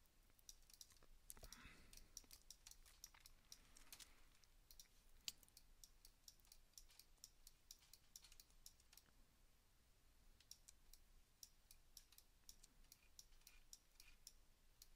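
Faint, irregular clicking of a computer mouse and keyboard, several clicks a second at times, thinning out in the middle.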